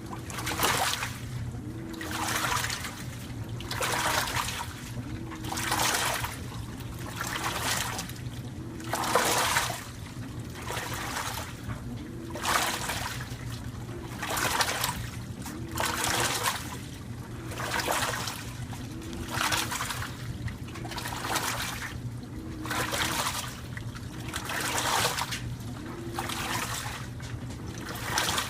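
2012 LG top-load washer agitating a load in its wash cycle: water swishes and sloshes in an even rhythm, one stroke about every second and a half to two seconds. Each stroke comes with a short motor whir, over a steady low hum.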